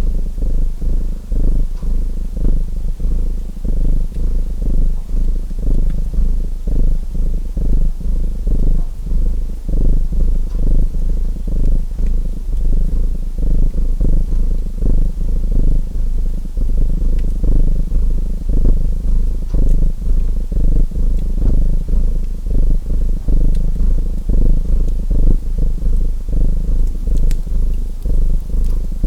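Domestic cat purring close to the microphone, a low rumble pulsing in a steady rhythm, with a few faint fireplace crackles.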